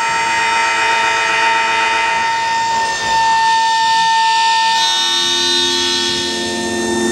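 Live experimental electronic drone-noise music: layered sustained, siren-like tones with a steady high tone held throughout, and a lower drone coming in about five seconds in.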